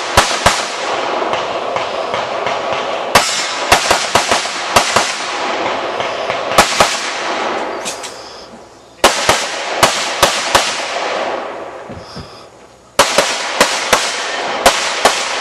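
Gunshots fired in rapid strings of two or three, with an echoing wash between them. There are short pauses about eight and twelve seconds in, before the firing resumes.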